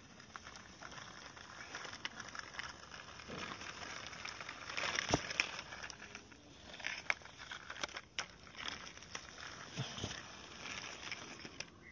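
Small plastic toy tractor and trailer pushed by hand over rough, gritty concrete: a scraping, rattling roll of hard plastic wheels on grit with scattered clicks, loudest about midway.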